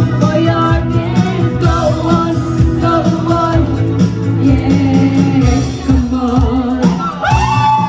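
A woman singing into a microphone over an amplified backing track with a steady bass line, through a PA loudspeaker. Shortly before the end, whoops and cheering from the room break in.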